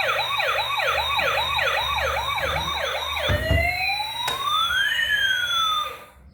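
Electronic siren of a toy emergency vehicle: a fast yelp of about three rising sweeps a second, then a slower rising-and-falling wail in two tones, cutting off about six seconds in.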